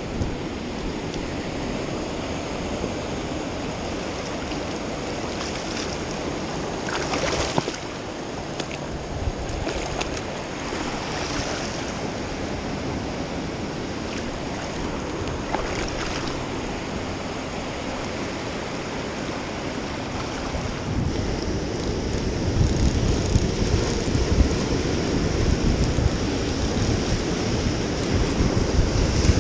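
Ocean surf washing onto the beach, a steady rushing noise. It grows louder over the last several seconds as waves break against the rocks close by.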